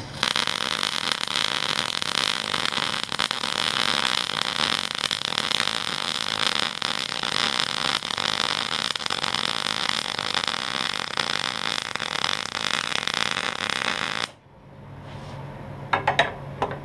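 MIG welder laying a bead on thick steel: the arc runs steadily for about fourteen seconds, then cuts off suddenly as the trigger is released. A few brief knocks follow near the end.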